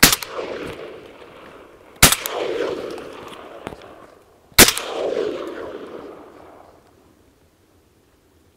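Three hunting-shotgun shots, the second about two seconds after the first and the third about two and a half seconds later, each followed by a long rolling echo that dies away over a couple of seconds.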